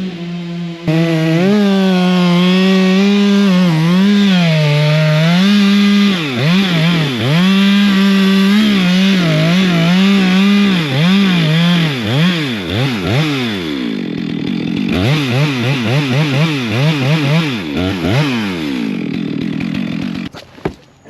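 Chainsaw engine running at high revs, its pitch dipping and climbing back again and again, then cutting off abruptly near the end.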